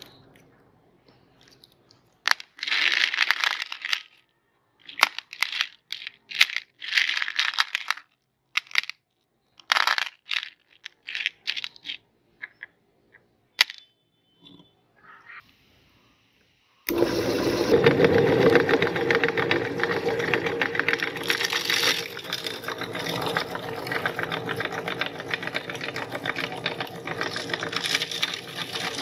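Candy wrappers crinkling in short bursts as wrapped hard candies are unwrapped, with light clicks of candies landing on a ceramic plate. About seventeen seconds in, a metal meat grinder starts abruptly and runs steadily, crunching the hard candies to powder.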